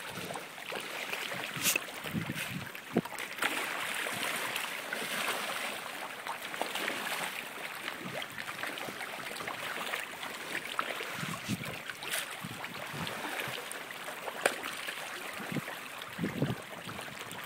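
Pond water lapping and splashing as a crowd of fish churns at the surface, with scattered small splashes throughout.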